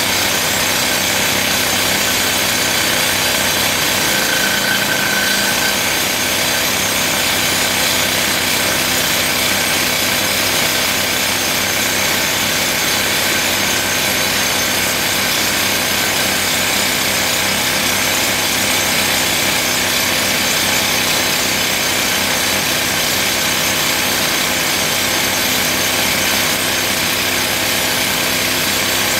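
Toku TS 55 pneumatic rock drill hammering into rock, running steadily without a pause.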